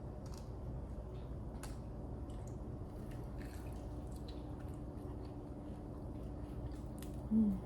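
Close-miked eating of chicken wings: soft wet chewing and small mouth clicks over a steady low hum, with a brief vocal sound near the end.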